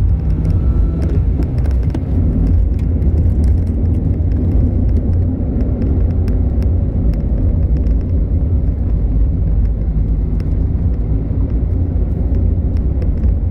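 Car driving on a narrow mountain road, heard from inside the cabin: a steady low rumble of engine and tyre noise, with faint clicks scattered throughout.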